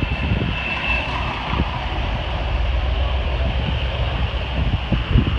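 Steady engine and road rumble of a car driving along, heard from an open convertible, with irregular low buffeting thumps.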